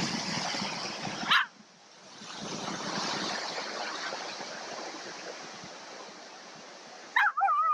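A dog barks once about a second in, then gives a second, wavering bark near the end, over the steady wash of surf.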